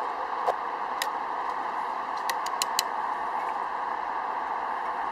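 Steady hiss of heavy rain, with a few sharp clicks, four of them in quick succession about two and a half seconds in.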